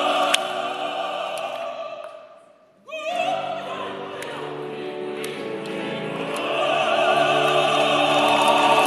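Ensemble of opera singers singing in chorus. A held chord dies away about two and a half seconds in, then a voice with wide vibrato starts a new phrase, and the whole ensemble swells to loud full voice over the last few seconds.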